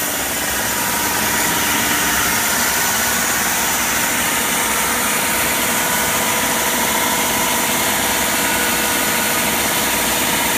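Horizontal wood band saw running: a steady, loud mechanical noise with a few faint steady tones over it.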